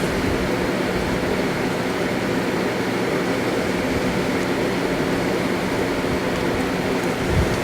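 Steady mechanical hum with a hiss over it, like air-handling machinery running, with a short low thump near the end.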